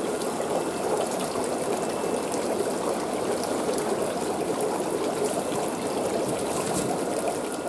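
Steady trickling and splashing of aquarium water.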